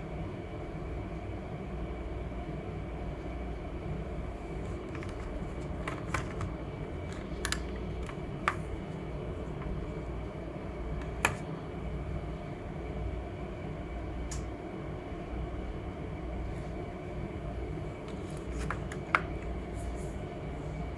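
Steady low room rumble with a few small, sharp clicks and taps from objects handled on a tabletop; the sharpest click comes near the end as a plastic tube of acrylic paint is picked up.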